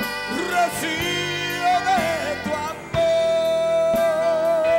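Live worship band music: electric guitar and keyboard over drums, with a long held note from about three seconds in that begins to waver a second later.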